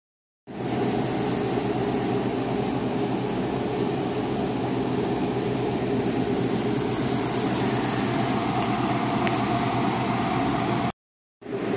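Steady mechanical hum with a low drone. It cuts out briefly twice, just after the start and just before the end.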